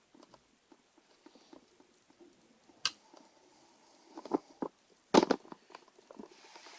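Small screwdriver working tiny screws into a laptop's plastic case: scattered light clicks and scrapes, a sharp click about three seconds in, then a few knocks and a louder cluster of taps past the five-second mark.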